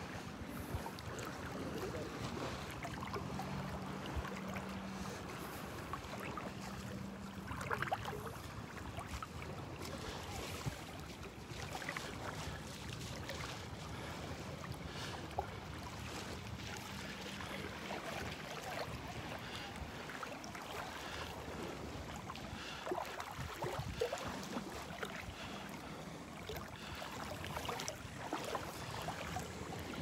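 Beach ambience: steady wind and surf noise with scattered small knocks, and a faint low steady hum for a few seconds near the start and again about halfway through.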